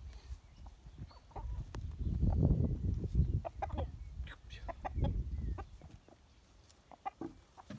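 Young chickens clucking in short calls. A low rumble of microphone noise is loudest through the middle seconds.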